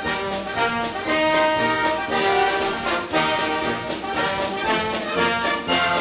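Background music with a brass section playing over a steady beat.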